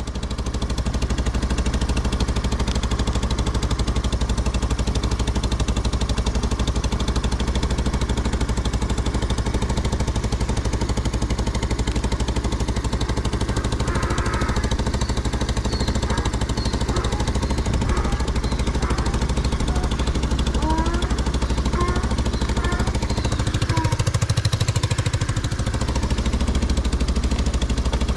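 ATV engine idling steadily with an even, rapid pulse, running on a swapped-in battery. It gets a little louder briefly near the end.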